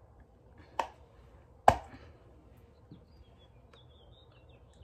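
Two sharp clicks about a second apart, the second louder, then a fainter tap: the latches of a small carrying case snapping open. Faint high chirps near the end.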